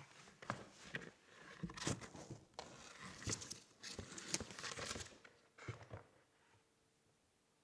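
Keyboard packaging being handled: rustling and crinkling mixed with irregular taps and clicks, stopping about six seconds in.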